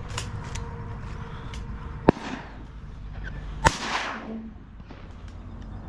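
Two shotgun shots about a second and a half apart, each a sharp crack followed by a short fading echo.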